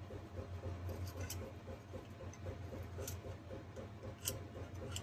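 A few sharp light metal clicks as a wire torch tip cleaner is handled and fitted into a small carburetor jet, over a steady low hum and a faint fast ticking.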